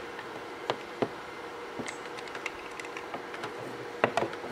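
Stick welder cables and electrode holder being handled on a wooden table: scattered light clicks and knocks, a run of small ticks in the middle and the loudest knocks about four seconds in, over a faint steady hum.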